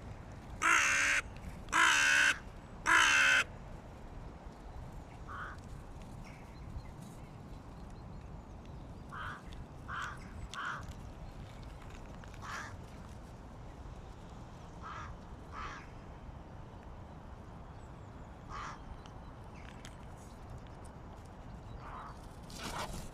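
Hooded crows cawing: three loud caws about a second apart near the start, then scattered fainter calls from other crows.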